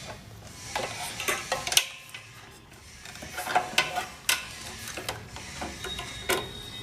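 Scattered light clicks and taps of small tools and test probes handled on an amplifier circuit board, irregular and short, with no steady running sound.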